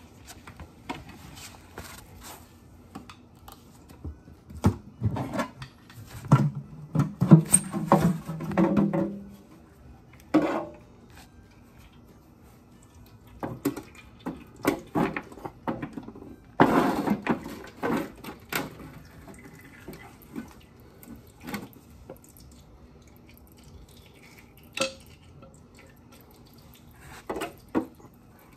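Oil pan of a Dodge T245-A flathead six being pried loose and taken off the engine block: irregular metal clanks, knocks and scrapes, loudest around seven seconds in and again near seventeen seconds.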